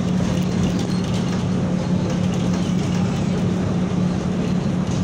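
Tatra T3 tram running along the track, heard from inside the passenger cabin: a steady rolling noise with a low, even hum under it.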